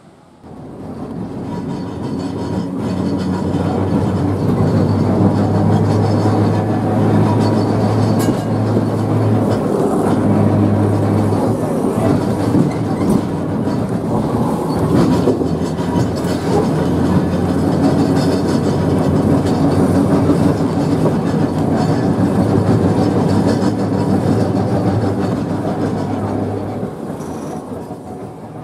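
1904 open-sided electric tramcar running on its rails: steady wheel-on-rail rumble and rattle with the hum of the traction motors, which drops out briefly a couple of times and fades near the end.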